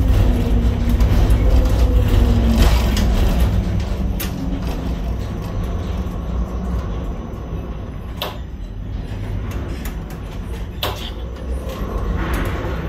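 Container gantry crane's hoist machinery running with a heavy low rumble as the spreader lifts a container out of a ship's hold, with a hum that sinks slightly and fades out about two and a half seconds in. A few sharp metallic clicks follow.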